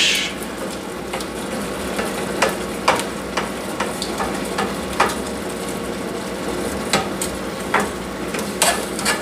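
A spoon stirring rice and peas in a saucepan, clicking and scraping against the pot a dozen or so times at irregular intervals, over a steady sizzle of the coconut milk boiling down.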